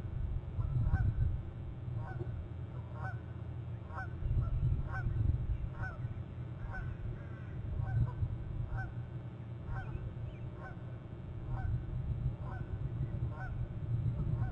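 A bird honking over and over, about two short calls a second, each call dropping in pitch, over a steady low rumble.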